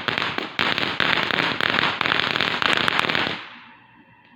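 Consumer firework going off in a dense, rapid crackle of tiny pops over a hiss, with a brief break about half a second in; it dies away about three and a half seconds in.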